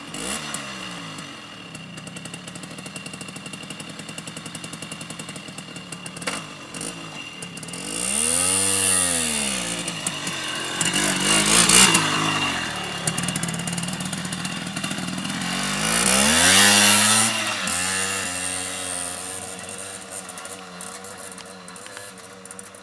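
Simson SR50 scooter's 50 cc single-cylinder two-stroke engine running while it is ridden. It revs up and drops back twice, about eight and sixteen seconds in, then fades as the scooter rides away. It runs unevenly, with something interrupting it, which the riders think is the ignition cutting the spark.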